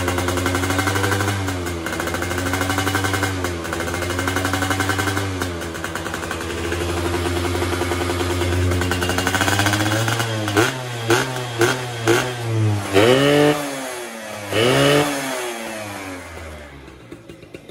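Yamaha F1ZR's 110cc two-stroke single-cylinder engine running at a held, slightly wavering speed, then blipped in a quick series of short, sharp revs from about ten seconds in before dropping away near the end. The engine is being tested with the carburetor's jet-needle clip in the leanest (number 1) position, and it is not yet reaching a high-rev scream.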